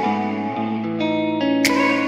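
Background music: sustained guitar chords with echo, changing every fraction of a second, and a single sharp percussion hit about one and a half seconds in.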